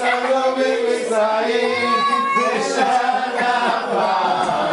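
A family group singing a Passover seder song together, several voices in unison with sustained, drawn-out notes.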